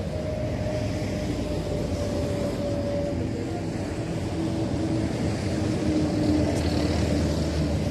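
Road traffic passing close by: a steady rush of car engines and tyres on the road, with a faint hum that holds through.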